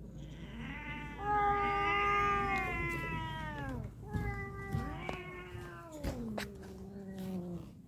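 Domestic cat caterwauling, the drawn-out warning yowl of a cat squaring off against another cat. There are two long yowls, each sliding down in pitch at its end, and the first is the louder.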